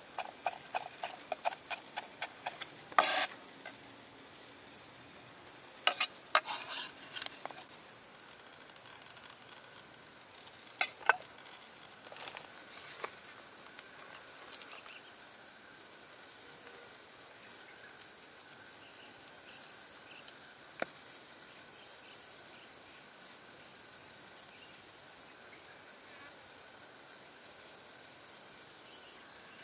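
A cleaver mincing shallot and garlic on a wooden chopping board: quick knocks for the first few seconds, then a few scattered louder knocks and scrapes. Underneath, insects chirp steadily at a high pitch, left on their own for the second half.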